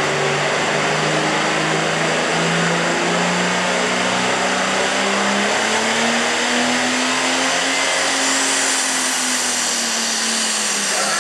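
Super stock John Deere pulling tractor's turbocharged diesel engine at full throttle, dragging a weight-transfer sled. The engine pitch climbs steadily for about eight seconds, then eases slightly near the end.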